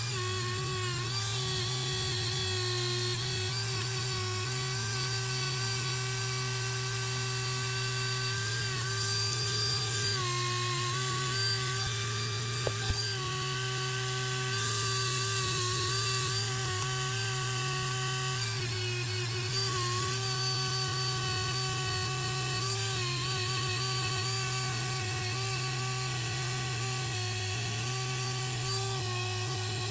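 Rotary tool spinning a wire wheel at about half speed against the rusty steel of small needle nose pliers: a steady high whine that dips briefly in pitch now and then as the wheel is pressed onto the work.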